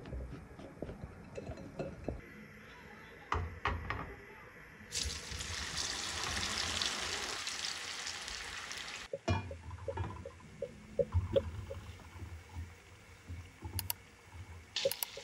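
Potato pieces clicking as they are tossed with flour in a glass bowl. Then potato wedges deep-frying in hot oil give a steady sizzle for about four seconds, the loudest part. After a cut, butter melts in a small pan with short pops and crackles, stirred with a silicone spatula.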